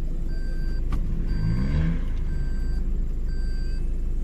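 Off-road vehicle reversing: the engine runs, revs up briefly about a second in, and its reversing beeper sounds about once a second, each beep lasting half a second.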